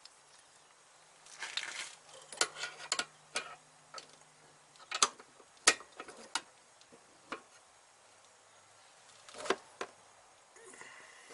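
Scattered sharp metallic clicks and short rattles from a hand-held tube bender being fitted to and worked on a brake hard line, the loudest clicks about five to six seconds in and another near the end.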